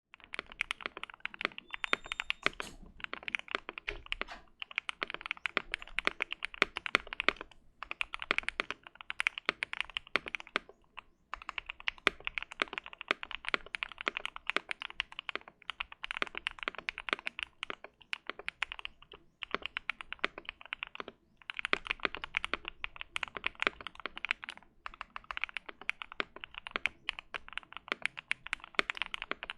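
Typing on a modded Keychron Q1 mechanical keyboard with an FR4 plate and lubed Gateron Milky Yellow Pro linear switches. The keystrokes come fast and continuous in runs, with short pauses between them, and there is no spring or plate ping.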